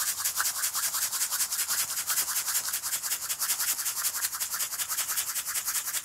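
Fine dirt-and-pastel scenic dust being sifted through a stocking, rubbed quickly and evenly at about eight strokes a second.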